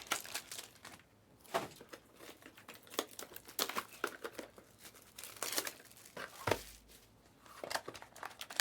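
Plastic wrapping crinkling and tearing as sealed trading-card packs are opened, in irregular crackles, with a dull knock about six and a half seconds in.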